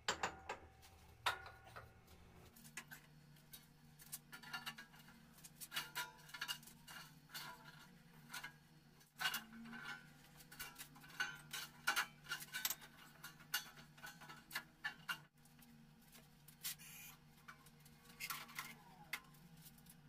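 Irregular light clinks, taps and knocks of hard objects being handled and set in place at a small handmade forge furnace, over a faint steady low hum that comes in a few seconds in.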